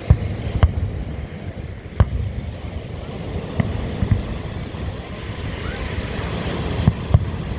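Fireworks shells bursting, about seven booms at uneven intervals, over a steady low rumble of wind and surf.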